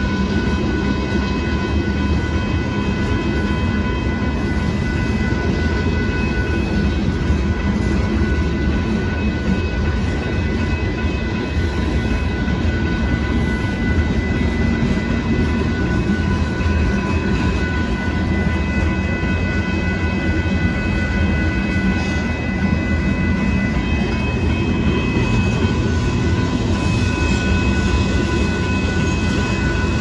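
Freight train of covered hopper cars rolling steadily past a grade crossing: a continuous rumble and rattle of wheels on rail. A steady high ringing runs over it, from the crossing signal's bell, its lowest tone fading about two thirds of the way through.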